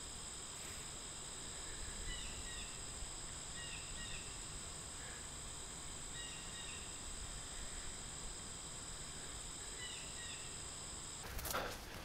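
Outdoor insect chorus, several steady high-pitched trills held throughout, with short bird chirps a few times every couple of seconds. The ambience cuts off suddenly near the end.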